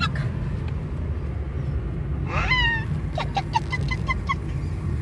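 Steady engine and road rumble inside a moving car's cabin. About halfway through, a small dog gives one high whine that rises and then falls, followed by a quick run of short, high yips.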